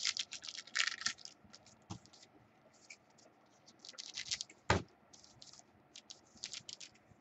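Trading cards being handled and slid past one another: clusters of quick papery scratching and clicking strokes, with one sharp knock a little before five seconds in.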